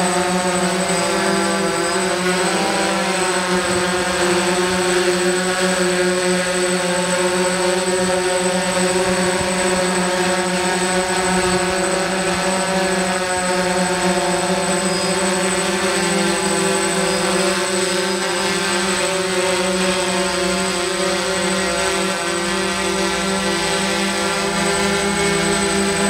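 DJI hexacopter's six electric motors and propellers whining steadily while it hovers, the pitch wavering briefly about two to three seconds in as the motors adjust.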